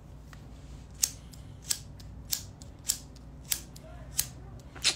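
Orange disposable lighter being flicked over and over: seven sharp strikes of the spark wheel, a little over half a second apart.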